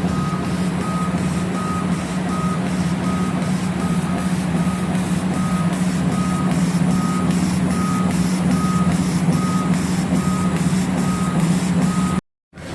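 CNC laser engraving machine running with a steady, loud hum, while a short high beep repeats evenly about every half second. The sound cuts off abruptly near the end.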